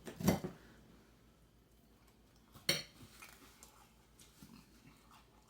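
Faint eating and food-handling noises: a few soft clicks and taps, with one sharper click a little before the middle, and little else.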